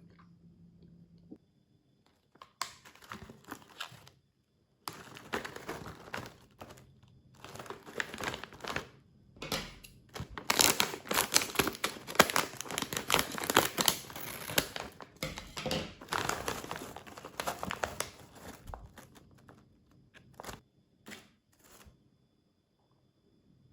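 Plastic snack packet crinkling and being torn open, in irregular bursts with short pauses.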